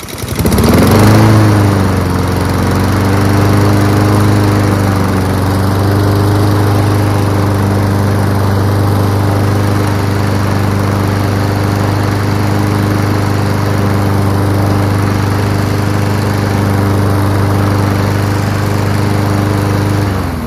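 Honda GCV160 single-cylinder four-stroke engine on a self-propelled push mower catching at once from a pull start, surging briefly, then settling into a steady run. It runs smoothly after a wash, then shuts off near the end and winds down.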